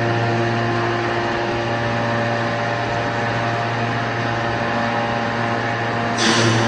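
Hydraulic scrap metal baler's power unit running with a steady hum of several even tones. About six seconds in, a short hissing rush comes in and the tones shift.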